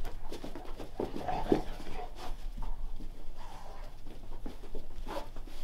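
Dogs playing and scuffling: many short clicks and taps, with a few brief dog whines.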